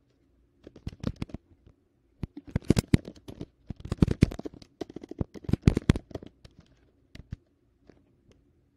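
Typing on a computer keyboard: quick bursts of key clicks with short pauses between them, thinning to a few scattered clicks near the end.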